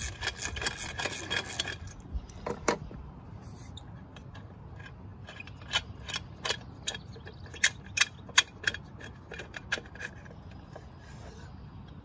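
Ratcheting wrench clicking rapidly as a small engine's muffler bolt is backed out, for about the first two seconds. It is followed by scattered metal clicks and clinks as the bolts and muffler are worked loose and handled.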